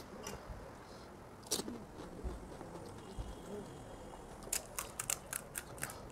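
Crisp, hollow pani puri shells crackling and crunching: a few single cracks, then a quick run of about eight sharp cracks near the end.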